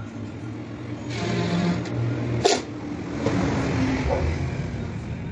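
Cordless drill driving screws into 15 mm MDF panels, its motor running in two spells of a few seconds each. A single sharp knock about two and a half seconds in.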